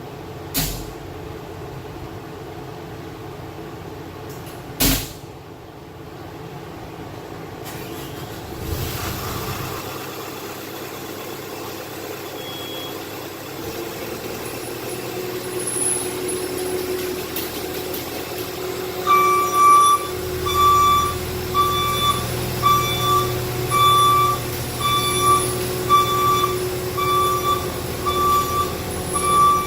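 Skid steer's engine running and getting louder, then its reversing alarm beeping steadily, just under once a second, from about two-thirds of the way in. Two sharp knocks in the first five seconds.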